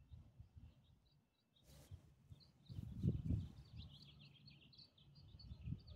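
Small birds chirping in a quick run of short high notes, over low rumbling bumps on the microphone, with one brief brushing noise about two seconds in.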